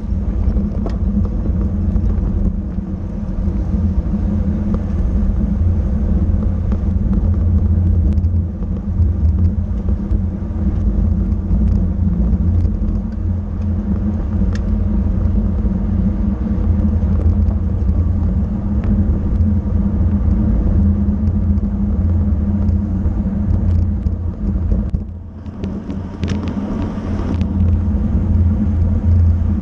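Wind and road rumble on a racing cyclist's camera microphone at race speed, a loud, steady low rush that dips briefly near the end.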